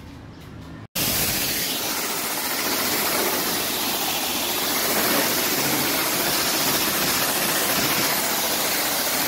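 High-pressure water jet from a self-service car wash wand spraying a car's body: a loud, steady hiss of spray that starts suddenly about a second in.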